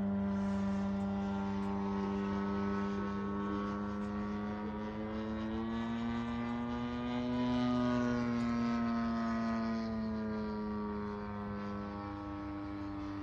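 Single-engine 50–60cc-class model biplane (Hangar9 Pitts S-2B) running steadily in flight overhead, its propeller engine note rising in pitch and loudness a little past the middle, then falling back.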